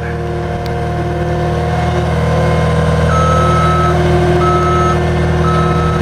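Caterpillar skid steer's diesel engine running steadily. About three seconds in, its reverse alarm starts, beeping about once a second as the machine backs up.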